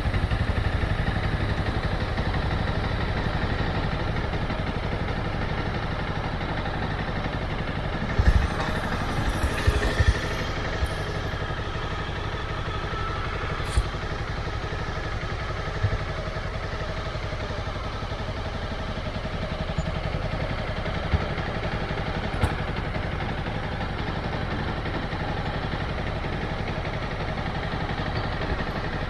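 Motorcycle engine running steadily at low revs, with a few short sharp knocks and clicks, the loudest cluster about eight to ten seconds in.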